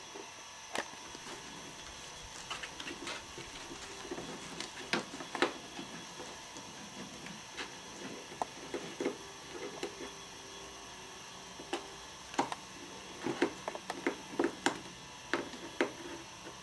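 Kittens scrabbling and clawing at a cardboard box: irregular scratches and taps, thickest about five seconds in and again a few seconds before the end.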